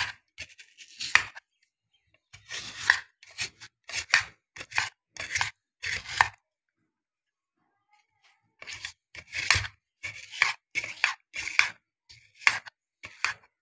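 Metal spoon scraping gel from the inside of a peeled aloe vera leaf in short strokes, several a second, with a pause of about two seconds midway.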